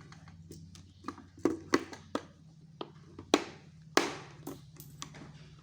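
Plastic clicks and taps of LEGO bricks being handled and pressed together: irregular sharp clicks, two louder ones in the second half, over a steady low hum.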